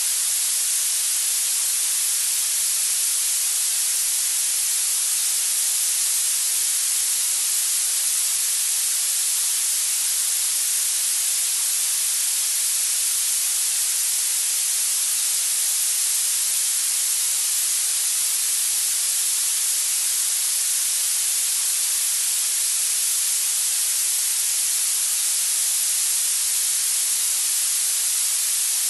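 Steady, unchanging high-pitched hiss: a tinnitus masking noise for sound therapy, with most of its energy in the treble and little in the bass.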